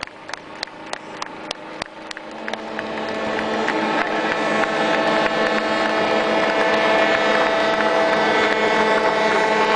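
A large passenger ship's engine droning steadily, growing louder for several seconds as the ship passes close by. Over the first two seconds there is a fading, even tapping, about three taps a second.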